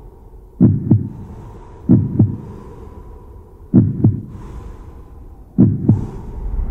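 Heartbeat sound effect: slow, deep double thumps in a lub-dub pattern, four pairs about two seconds apart, over a faint steady hum. A low rumble starts to swell near the end.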